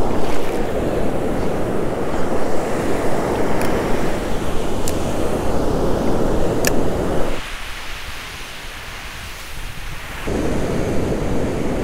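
Ocean surf washing up the beach, with wind buffeting the microphone. The wind rumble drops out for about three seconds past the middle, leaving the hiss of the surf, then comes back. A few faint ticks in between.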